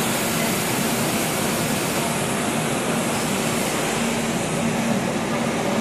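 Passenger train heard from an open coach doorway as it departs: a steady rushing noise with a low, even hum underneath.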